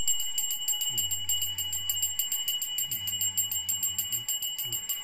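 Small brass puja hand bell (ghanti) rung continuously in rapid, even strokes, roughly eight a second. Twice a man's low voice holds a steady pitch for about a second, like monotone chanting of a ritual.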